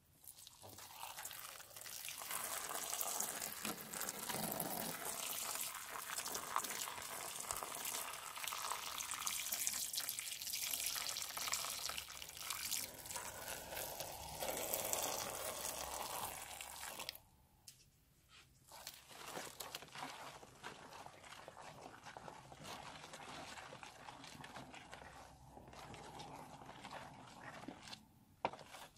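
Liquid gushing and splashing out of a cut balloon onto foam for about seventeen seconds, then quieter wet, crackly sounds as the foamy mixture is stirred with a spatula.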